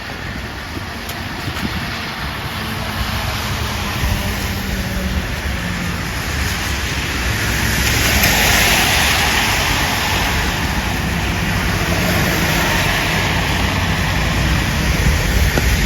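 Road traffic on a wet street: cars passing with tyre hiss over a low engine hum, one passing vehicle swelling and fading about halfway through.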